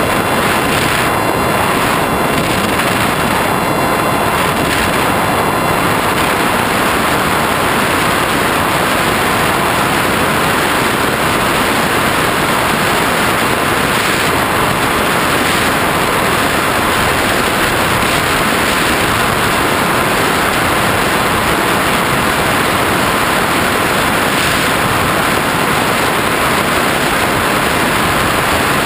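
Steady, loud rush of airflow over the GoPro on an FPV flying wing in flight, with a faint, steady whine from the plane's motor and propeller.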